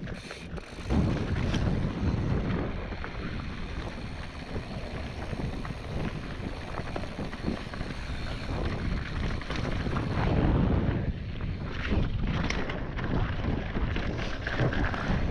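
Wind buffeting the action-camera microphone and mountain-bike tyres rolling over rough trail on a fast descent, with frequent small clicks and rattles from the bike.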